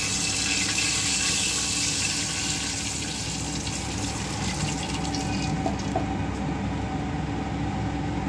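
Milk poured in a steady stream from a metal jug into an aluminium cooking pot, splashing as the pot fills, tapering off about six seconds in.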